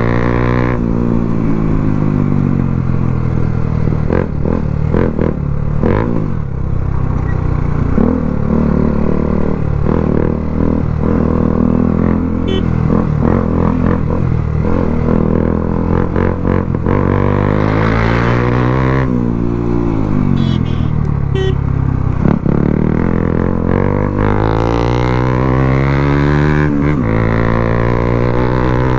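Motorcycle with an aftermarket Akrapovič exhaust being ridden. Its engine drone rises and falls in pitch as it revs and shifts, and there are a few short, sharp pops.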